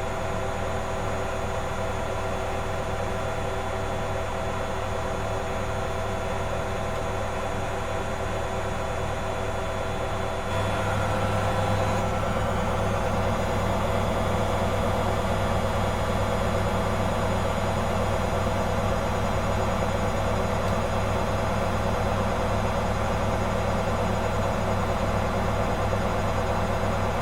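Servis MK322 washing machine's brush motor spinning the drum on its spin cycle (1000 rpm maximum), a steady motor whine and drum hum. About ten seconds in, it gets louder and the tone shifts as the drum picks up speed.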